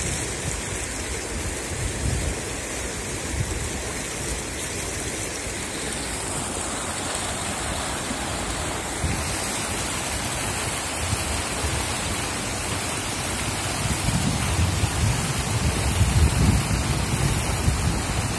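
Floodwater rushing and spilling over a concrete weir: a steady rushing noise, with a deeper rumble growing louder over the last few seconds.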